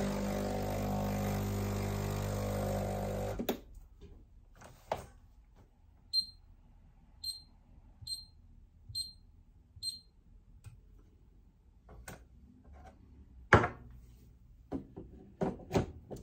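Breville Barista Express espresso machine's pump running with a steady hum for about three and a half seconds, flushing water through the empty group head, then cutting off. Then five short high beeps about a second apart, and clunks and knocks near the end as the portafilter is handled, the loudest a little before the end.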